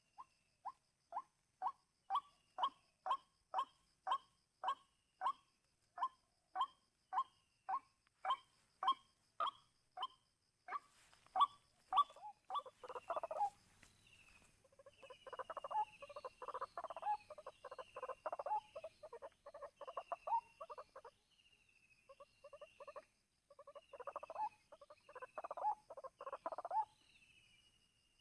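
White-breasted waterhen calling. A steady run of repeated 'kwak' notes comes at about two a second, then from about eleven seconds in they break into dense, fast chattering bouts, with short pauses between them.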